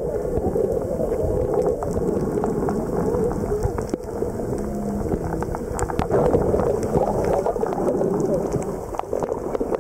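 Muffled underwater noise picked up by a submerged camera: a steady churning rush of water with scattered sharp clicks and crackles.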